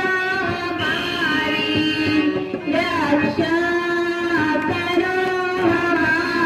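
Music: a sung melodic line with held, gliding notes over a sustained instrumental tone and tabla, the sung verse of a Kumaoni Ramlila.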